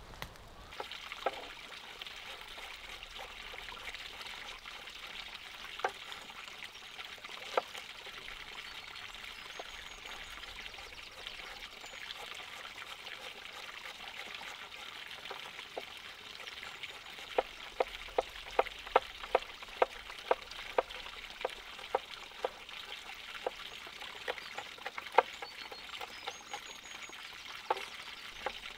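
Beef sizzling as it grills: a steady hiss with sharp crackling pops, which come quickly, about two a second, for several seconds past the middle.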